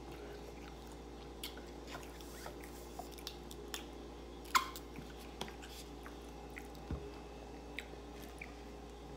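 Plastic ketchup squeeze bottle being handled and squeezed onto a plate, with one short, loud squirt about four and a half seconds in, amid small clicks and taps, over a steady low hum.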